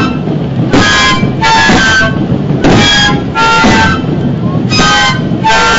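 Chino flutes (flautas de chino) blown in short, rough, reedy blasts in alternating pairs, one pair about every two seconds, over a continuous low background din.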